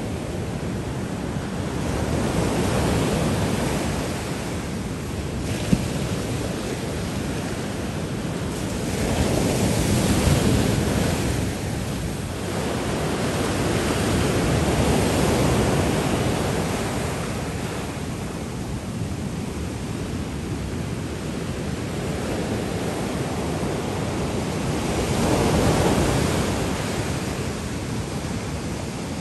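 Heavy storm surf breaking on a rocky shore: a continuous rush of waves that swells louder as each big breaker comes in, about four times. This is the big swell left over after a storm.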